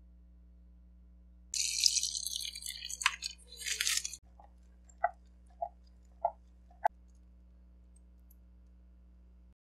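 Liquid poured through a fine mesh strainer into a bowl of liquid, a splashing hiss for about two and a half seconds. About five separate drips follow, plinking into the liquid below. A low steady hum runs underneath.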